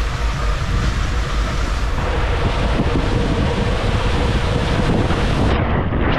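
Steady rush of water and wind buffeting the microphone during a ride down a water slide. A little before the end the sound turns duller.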